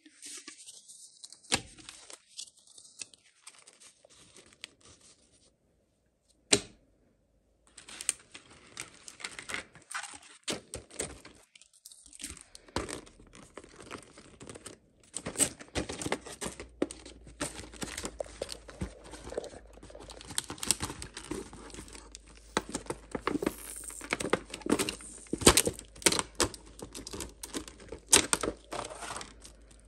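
Toy packaging being torn open and handled: tearing and crinkling with many sharp clicks and taps, busier in the second half.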